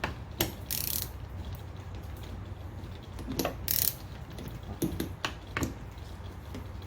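Scattered metallic clicks and short scrapes from a hand rivnut-setting tool being backed off a freshly crushed rivnut with a ratchet and wrench, the ratchet's pawl clicking in small groups.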